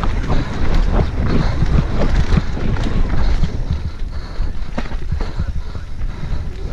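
Wind rushing over a helmet-mounted camera while a mountain bike clatters and rattles over roots and rocks on a fast dirt-trail descent.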